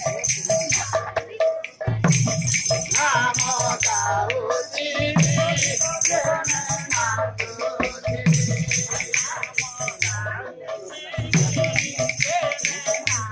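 Badi Pala folk performance music: a male voice singing over recurring drum strokes and bright jangling cymbals.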